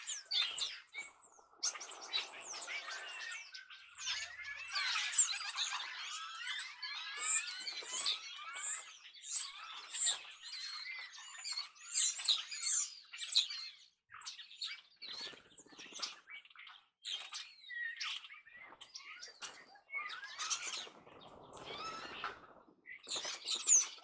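A flock of European starlings calling at a feeder: a dense, overlapping chatter of short squeaks, whistles and harsh squawks. There is a flurry of wingbeats around twenty seconds in as the birds fly off.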